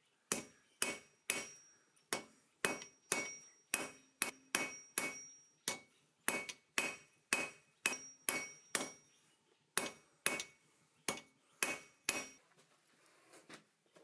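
Hand hammer striking hot steel on an anvil, a steady run of blows at about two to three a second, each with a short metallic ring, stopping about twelve seconds in.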